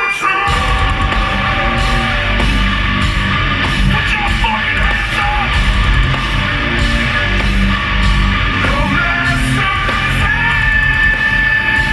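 Loud live heavy metal music from a rock band playing full-on, with a steady drum beat under held pitched notes.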